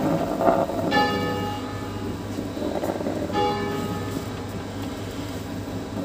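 Bronze church bells of a five-bell set tuned in E-flat, rung by hand in concerto: two bell strikes about two and a half seconds apart, each ringing on with its overtones and slowly fading.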